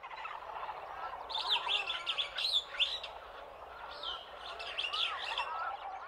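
Rainforest bird chorus: many birds chirping and calling at once, in short rising and falling notes over a steady background haze.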